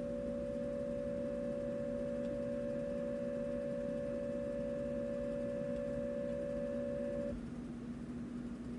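Mock emergency alert tone: a single steady electronic beep held for about eight seconds that cuts off suddenly near the end, over a steady low hum.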